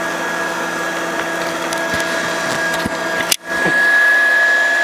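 Oreck bagged upright vacuum cleaner's motor running with a steady high whine while the vacuum burns, with a few faint clicks. The sound drops out sharply for an instant about three and a half seconds in, then returns slightly louder.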